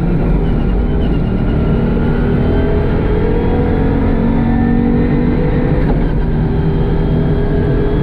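Audi Quattro Group B rally car's turbocharged five-cylinder engine running at a fairly steady speed, its pitch drifting gently up and down with a rough, ragged low end. The car has a misfire.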